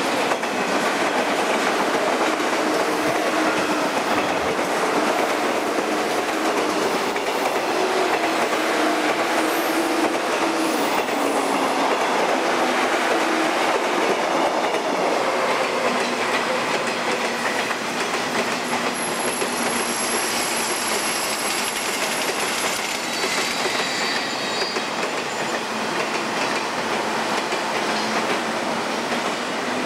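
JNR steel-bodied electric trains running past on the adjacent tracks, a steady loud running noise throughout. A thin high-pitched wheel squeal comes in about two-thirds of the way through, followed by a lower one.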